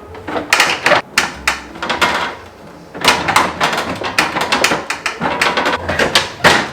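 Food containers and refrigerator parts being handled, with many sharp knocks, clunks and rattles. There is a short lull about two and a half seconds in, then the clatter picks up again.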